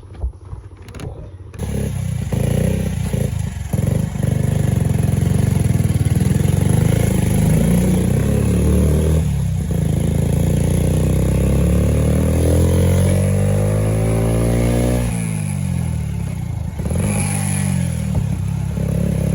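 Yamaha R15 V4's single-cylinder engine running under load as the motorcycle rides, coming in loudly about two seconds in. Its pitch climbs steadily as it accelerates, drops sharply about fifteen seconds in at an upshift, then climbs again.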